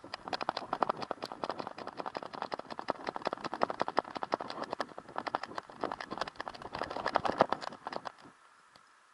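Rapid, uneven clicking and rattling from a corgi on the move with a camera strapped to its harness, a tap with every stride. It stops about eight seconds in.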